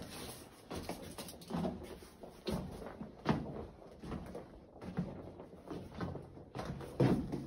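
Footsteps on the dirt and loose rock floor of a mine tunnel, a step a little under every second, each with a short scuff.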